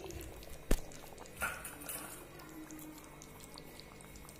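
A single sharp click a little under a second in, then a short rustle, over a faint steady hum.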